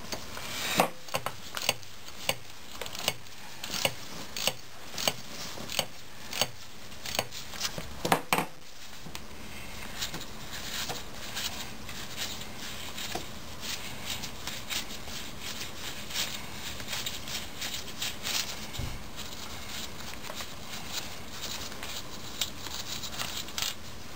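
Ratchet wrench clicking at a steady rhythm, a sharp click roughly every half second, as an extension housing bolt on a 4L80E transmission is backed out. After a louder clatter about eight seconds in, the clicks give way to faint, quick ticking and rubbing.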